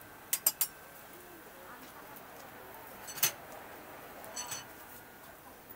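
Sharp clicks and clinks: three quick clicks about a third of a second in, a louder single click about three seconds in, and a brief ringing clink about four and a half seconds in, over a steady faint background.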